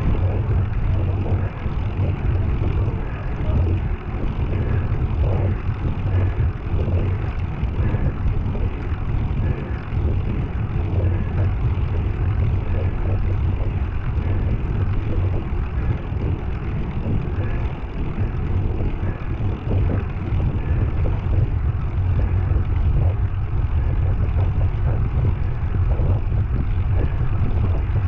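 Heavy, rhythmic breathing of a person climbing hard, under a steady low rumble.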